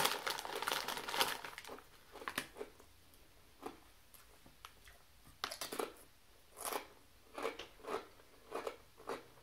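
A potato-chip bag crinkling as a hand reaches into it, then potato chips being bitten and chewed, with a series of sharp crunches spread out one after another.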